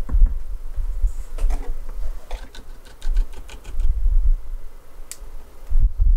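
Handling sounds of a small handmade box and paper pieces on a wooden desk: dull knocks, a quick run of light clicks in the middle, and a single sharp click a little after five seconds in.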